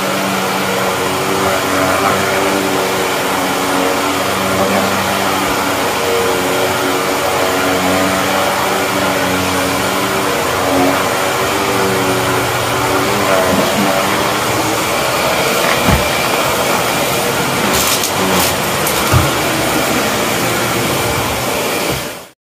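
Shark Navigator upright vacuum cleaner running steadily over a shag rug, its motor hum holding several steady tones, with a few brief clicks in the second half. The sound cuts off suddenly just before the end.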